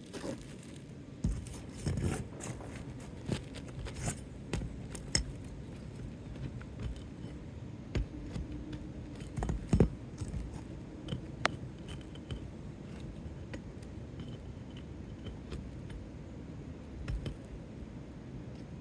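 Hand work on asphalt roof shingles: scattered scrapes, clicks and light metallic clinks as a tool works at a shingle fastened with staples, with one sharper knock about ten seconds in.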